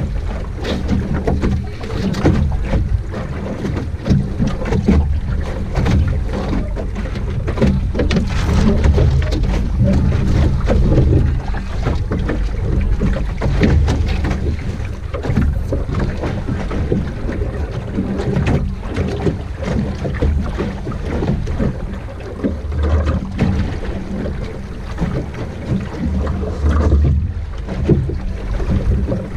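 Water rushing and slapping against the hull of an Optimist dinghy under sail, with wind rumbling on the microphone; an irregular, loud, continuous wash with many short splashes.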